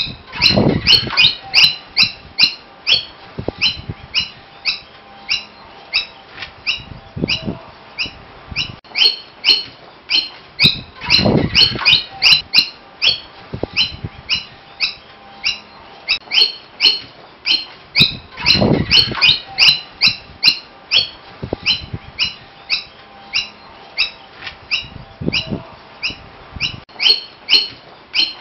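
Noisy miner calling: a rapid, unbroken run of short, sharp, high notes, several a second. Every few seconds there is a louder, lower rushing sound.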